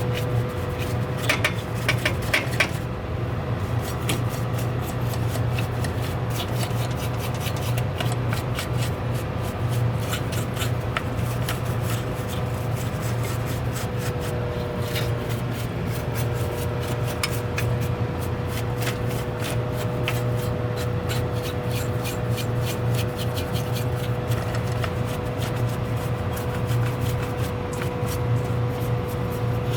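Steady low machine hum with a thin steady whine above it, and many small clicks and rubbing sounds throughout, consistent with the open soda vending machine running while its wiring and control board are handled.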